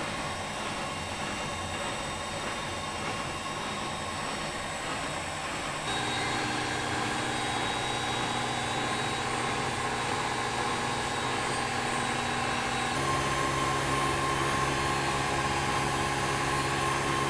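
Old Siemens washing machine spinning up toward its top spin speed of 1400 rpm: a steady motor and drum hum that steps up in pitch and loudness about six seconds in and again about thirteen seconds in.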